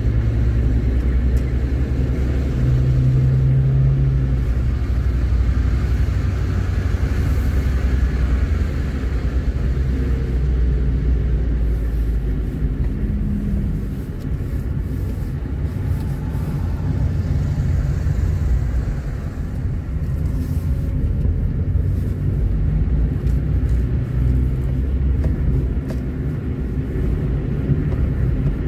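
Engine and road noise of a moving car: a steady low rumble, its engine note shifting a little as the car slows and speeds up, with brief dips in loudness about halfway through.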